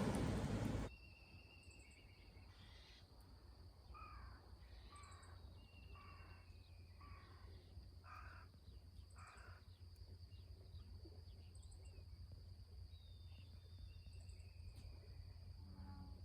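A loud rush of noise cuts off about a second in, leaving a quiet outdoor background where a bird calls about six times, short falling calls roughly a second apart, with a few thin whistles, over a steady high whine and a low hum.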